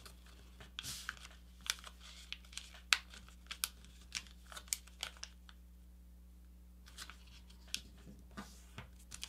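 A sheet of paper being folded and creased by hand into a paper airplane wing: scattered crinkles and sharp crackling taps, with a quiet pause a little past the middle.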